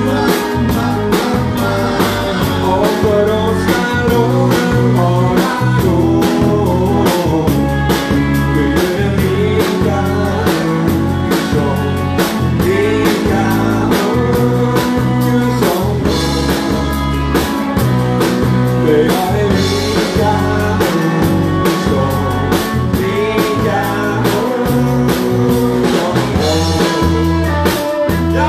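A live band playing an upbeat number: a drum kit keeping a steady beat, electric guitar and a deep bass line, with a man singing over it.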